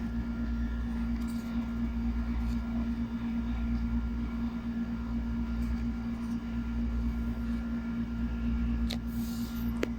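Steady background hum with a constant low tone and low rumble underneath, and two faint clicks near the end.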